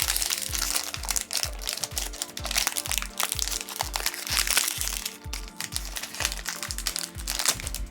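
Crinkling and rustling of toy packaging being dug into by hand, over background electronic music with a steady beat.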